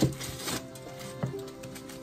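Knife chopping through rolled taro leaves: a few sharp strokes, one right at the start, one about half a second in and one past a second, over background music with steady held tones.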